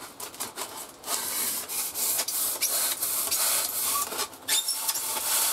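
A hand saw cutting through a rigid foam pipe-insulation section in back-and-forth strokes, a hissing rasp that starts about a second in and rises and falls with each stroke.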